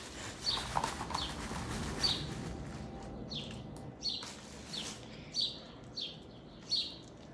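Short, high chirps repeating about every two-thirds of a second, like a small pet bird calling, over soft sticky sounds of slime being handled.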